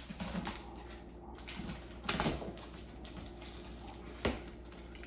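A cardboard shipping box being opened by hand: rustling and scraping of cardboard and packaging in short bursts, the loudest about two seconds in, with one sharp click a little after four seconds.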